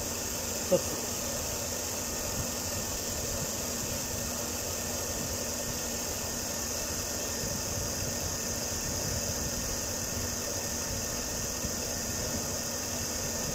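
Chevrolet Tahoe engine idling with its electric radiator cooling fans running steadily. The fans are weak, which the mechanic suspects is a failing fan motor.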